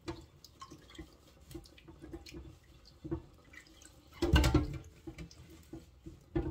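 Washing at a kitchen sink: water splashing and dripping, with small clinks and knocks of things being handled in the basin and one louder clatter about four seconds in.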